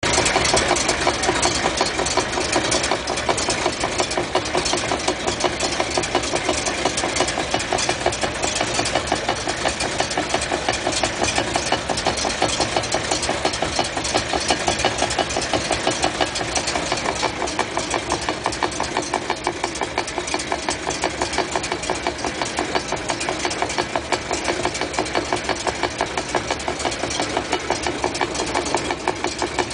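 1956 Chrysler New Yorker's 354 Hemi V8 running with the driveline turning, making a fast, even, rhythmic pulsing noise. The noise comes from the drivetrain: the propeller shaft's trunnion universal joint or the rear axle. The tone shifts slightly about halfway through.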